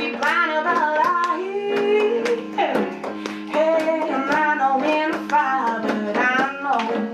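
A woman singing a slow song while playing sustained chords on an electric keyboard.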